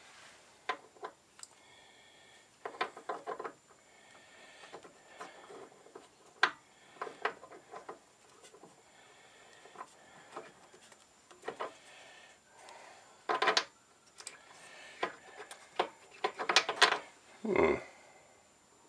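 Metal ER25 collet chuck body being handled and tried against the threaded spindle nose of a Myford Super 7 lathe: irregular small metallic clicks, taps and short scrapes, with a louder cluster of scraping clicks about two-thirds of the way in and again near the end.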